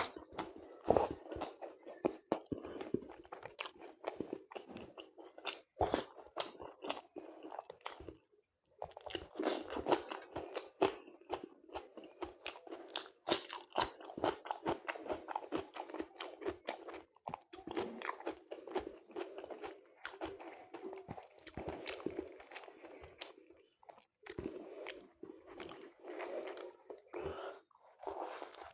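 Close-up eating sounds: a person chewing and crunching food in quick, irregular bites, with wet mouth clicks and short pauses between mouthfuls.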